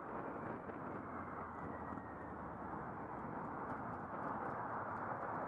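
Motorcycle at motorway speed heard from a helmet-mounted camera: a steady rush of wind on the microphone over engine and road noise, growing a little louder about four seconds in.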